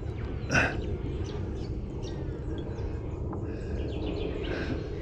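Steady wind rumble on the microphone with a few bird chirps, and a brief noisy burst about half a second in.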